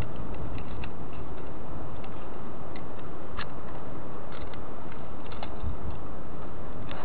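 Fishing reel being cranked, giving scattered light mechanical ticks and clicks over a steady low rumble.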